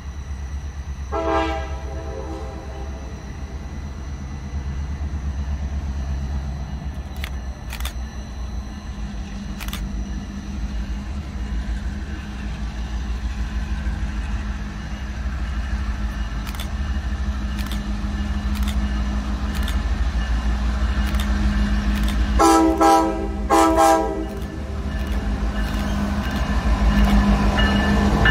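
Diesel passenger train approaching, led by a Reading and Northern EMD F-unit locomotive: a steady low engine rumble grows louder as it nears. The locomotive's multi-chime horn gives a short blast about a second in and two short blasts near the end.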